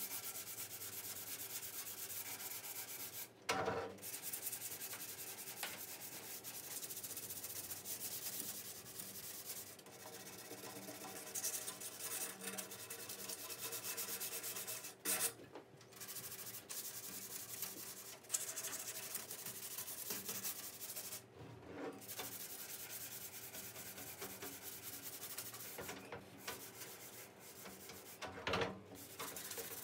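Hand-sanding the painted sheet-steel panels of an old Craftsman tool chest with a sanding pad: steady scratchy rubbing strokes, broken by a few short pauses.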